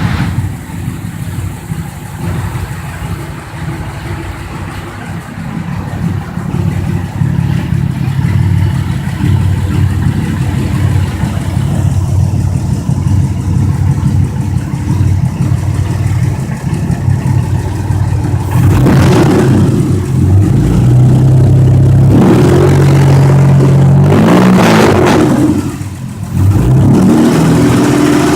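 Jeep Gladiator's tuned Tornado straight-six engine, built to over 200 hp, idling steadily, then revved several times in the last third, the pitch rising and falling with each blip and held up for a few seconds near the end.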